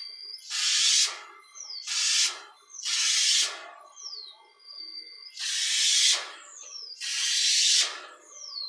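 Homemade spray gun, built from an insecticide pump sprayer and fed by an air compressor, spraying a coat of varnish in five short hissing bursts. A brief falling whistle follows most bursts.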